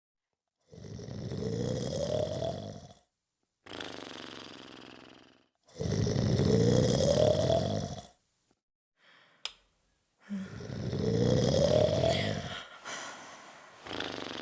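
A person snoring: three long, loud snores, each rising in pitch, with a quieter breath after the first and the last. There is a short click just before the third snore.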